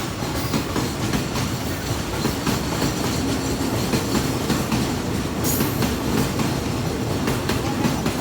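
Freight train wagons rolling past at speed, with a steady rumble and a regular clickety-clack of wheels over rail joints. A brief high squeal from the wheels about five and a half seconds in.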